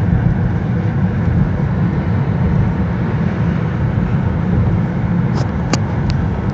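Steady low rumble of road and engine noise inside a car's cabin while driving at highway speed, with a few light clicks near the end.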